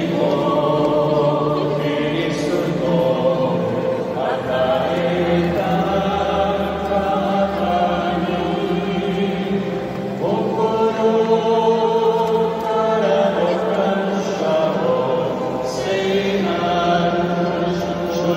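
Choir singing a slow liturgical chant, with several voices holding long notes and moving together from note to note.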